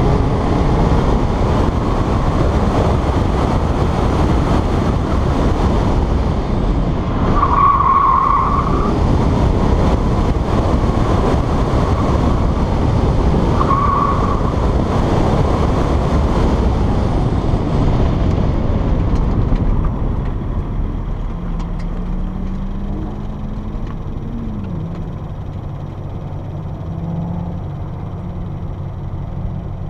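Subaru BRZ's flat-four engine at speed on an autocross run, with heavy wind rush on an outside-mounted camera and two short tire squeals, about a quarter and about halfway through. About two-thirds through, the noise falls away as the car slows, leaving a low engine hum that rises and falls in pitch.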